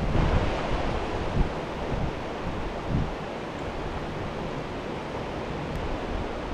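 Steady rushing noise of wind buffeting the microphone and flowing stream water, with a couple of soft low bumps.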